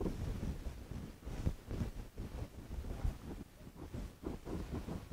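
Flat paintbrush dragging paint across a stretched canvas in back-and-forth strokes: faint, irregular scrubbing and brushing sounds.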